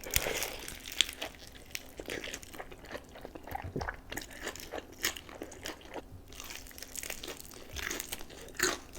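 Biting and chewing crispy Jollibee fried chicken with ramen: a crunchy bite at the start, then a long run of small crunches and clicks of chewing.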